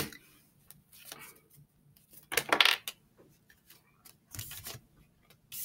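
Tarot cards being handled on a wooden tabletop: a sharp click at the start, then scattered light clicks and a few short rustling swishes as cards are moved and set down, the loudest about two and a half seconds in.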